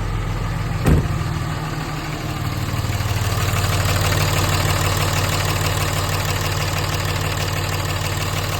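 2007 Cummins 5.9 inline-six turbodiesel idling with a steady rapid ticking clatter, the noise heard after the CP3 high-pressure fuel pump was replaced. A single sharp thump about a second in.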